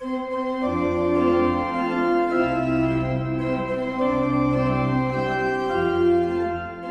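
Organ playing a slow passage of sustained chords, the bass note changing every second or two.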